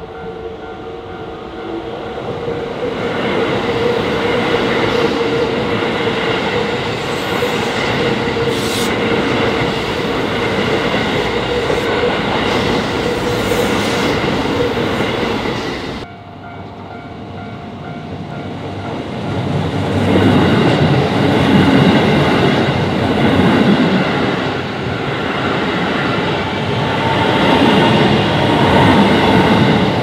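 Japanese level-crossing warning bells ringing while Keisei electric trains pass, the wheels clattering over the rail joints. The sound breaks off abruptly about halfway through, and a second train then passes, louder and close by.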